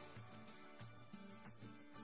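Background music: a song with a steady beat and a bass line.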